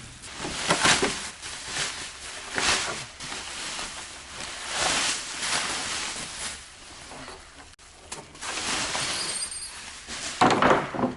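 Rustling, rubbing and scraping in uneven swells as a brand-new car air duct is handled, with a few light knocks and clicks.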